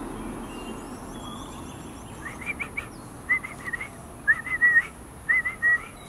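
A person whistling four quick groups of three or four short rising-and-falling notes, starting about two seconds in and about a second apart, imitating a bird call to coax a white-throated kingfisher into calling.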